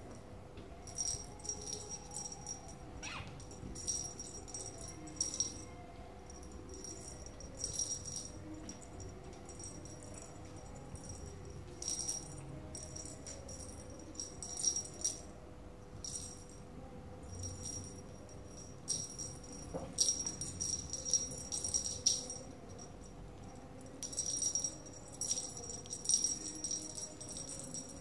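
The small bell on a cat wand toy jingling in irregular short bursts as it is waved and batted at, with brief pauses between shakes.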